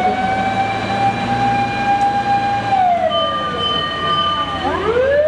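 Fire-engine wail siren: a long tone that holds high, sinks about three seconds in, then climbs again near the end. A steady higher tone sounds while it sinks, over a low hum.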